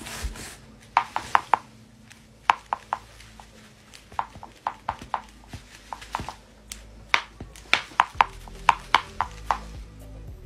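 An irregular series of sharp, light taps or clicks, many in quick clusters of two to four, over a faint low hum.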